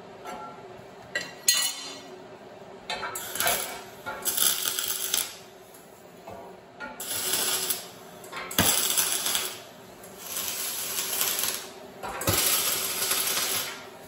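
MIG welder tack-welding a steel angle-iron frame together: a couple of sharp clicks early on, then about six short welds of a second or so each, with short pauses between them.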